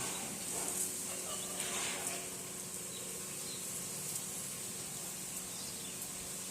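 Outdoor nature ambience: a steady high-pitched hiss, with a few faint, brief sounds in the first two seconds.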